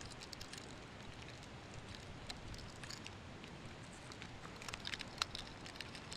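Swiss Army knife blade shaving a tulip poplar branch: a string of short, sharp cutting scrapes and clicks that come thicker about three quarters of the way in, with the loudest one a little after that.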